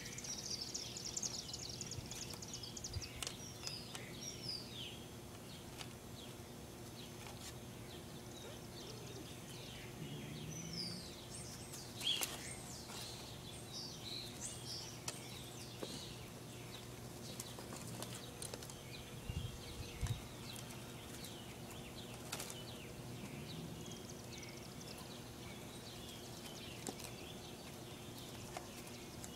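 Faint outdoor ambience: small birds chirping, with a high trill about a second in and scattered short chirps throughout, over a steady low hum.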